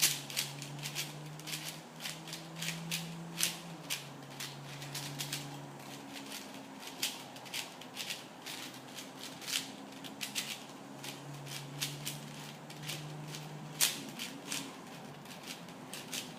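4x4 speedcube turned rapidly by hand: an irregular run of sharp plastic clicks and clacks, several a second.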